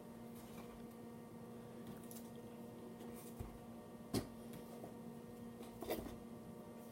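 A few faint clicks and taps of pocket knives being handled and pressed into the slots of a foam-lined case, the loudest about four seconds in.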